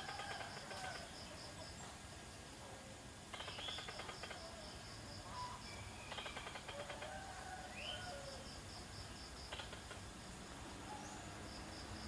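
Faint outdoor ambience: birds giving short chirps over a steady pulsing insect trill, with a few stretches of rapid clicking chatter.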